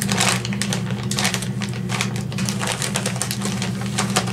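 Crunchy potato chips being chewed: a quick irregular run of sharp crackles, over a steady low hum.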